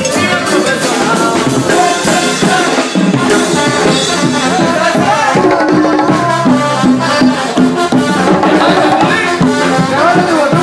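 A live banda sinaloense playing loudly: brass over a steady beat of drums, with a hand-played conga drum close by.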